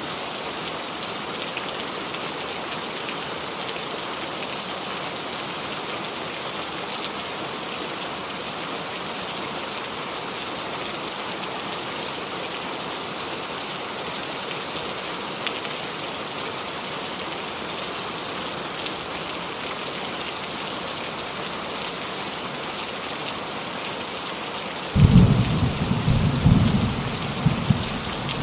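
Steady rain falling on a roof, an even hiss of drops. Near the end a low rumble of thunder breaks in suddenly and becomes the loudest sound.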